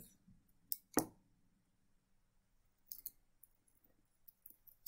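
Faint handling sounds of peeling an Infusible Ink transfer off a ceramic mug. A light knock comes about a second in, then a few soft clicks and crinkles around three seconds in as the transfer pieces come away.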